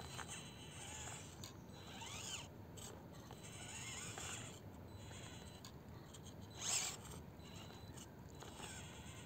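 Absima CR-18 Pro micro RC crawler's small electric motor and gears whining faintly in short bursts, the pitch rising and falling with the throttle as it crawls over rock, with one brief louder scrape about seven seconds in.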